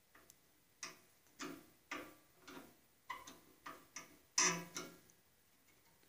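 A series of faint, light metal clicks and taps, about one or two a second, the loudest a little past halfway: a hex key working the set screws that lock the upper blade-guide blocks on a Delta bandsaw.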